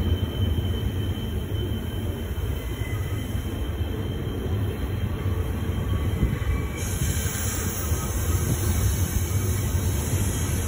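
Double-stack intermodal freight train rolling past: a steady low rumble of wheels on rail with a faint, high, thin wheel squeal from the curving track. A brighter hiss comes in about seven seconds in.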